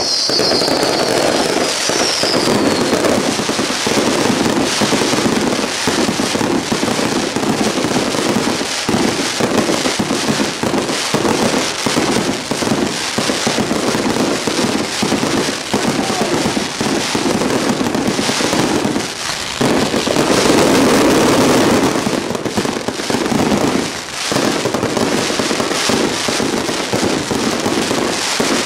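Aerial fireworks display in rapid, unbroken succession: many shells bursting with dense crackling and popping, the golden crackling stars fizzing overhead. High falling whistles sound in the first couple of seconds, and the bursts thicken into a louder, denser stretch about twenty seconds in.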